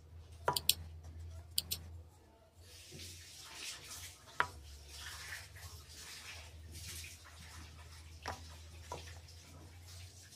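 Faint handling noise: a few sharp clicks and light knocks as carved wooden bird figures are picked up and turned in the hand, with some rustling, over a low steady hum.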